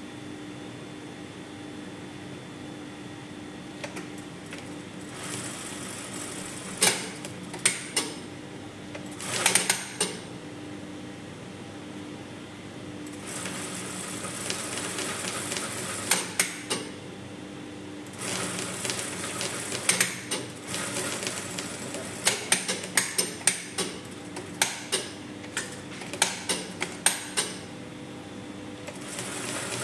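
A Brother industrial single-needle lockstitch sewing machine runs in several stretches of a few seconds each as fabric is stitched, over a steady low hum. Sharp clicks and knocks fall in and between the runs.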